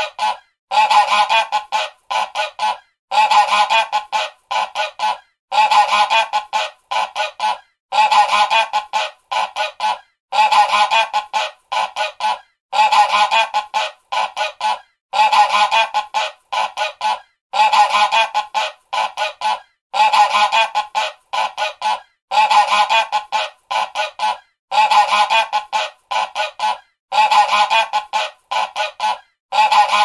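Goose honking: a quick run of honks followed by a few short separate honks, the same series repeating about every two and a half seconds.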